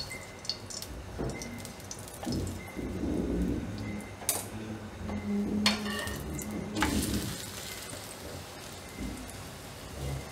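Oil crackling and sizzling under a thepla (flatbread) frying on a hot non-stick tawa. There are soft knocks and scrapes of the brush, hand and metal spatula against the pan, and a few sharp taps around the middle.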